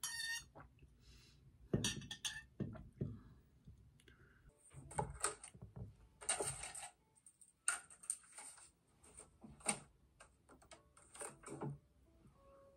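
Small cosmetics and their packaging handled on a desk: scattered clicks, taps and rustling.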